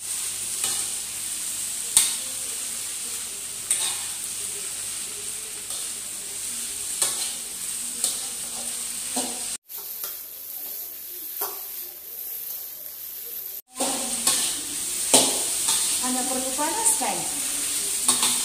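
Leftover food stir-fried in an aluminium wok on a gas burner: a steady sizzle with the scrape and clack of a spatula turning it. The sizzle drops away for a few seconds around the middle, then returns.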